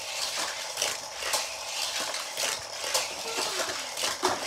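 Hot Wheels toy car circling a plastic loop track with a booster, clacking about twice a second as it laps.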